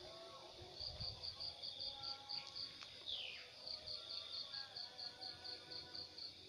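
Insects chirping: a high, rapid pulsing call of about six pulses a second in runs of two to three seconds, over a steady high drone. A brief falling whistle sounds about three seconds in.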